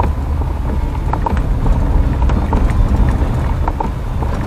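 A car driving on a wet dirt road, heard from inside the cabin: a steady low rumble from engine and tyres, with irregular small knocks and ticks from the road surface.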